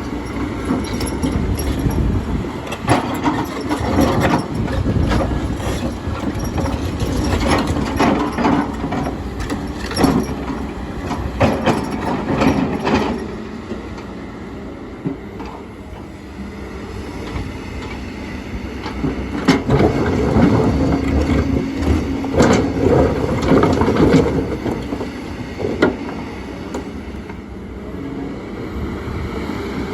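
Kobelco excavator's diesel engine running with a steady hum, its bucket scraping and knocking against stones, with repeated clatters and thuds of rock. The engine and knocking grow louder in two stretches, easing off in between.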